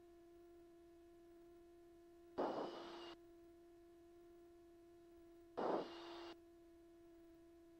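Faint steady electrical hum in the aircraft's radio/intercom audio feed, with no engine noise, broken twice by a short burst of hiss about three seconds apart, each sharper at its start.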